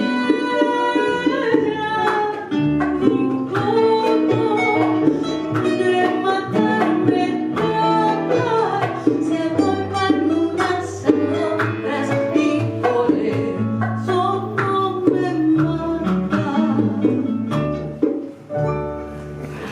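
Band playing the instrumental close of a slow song: guitar and bass under a melody line, continuous without words.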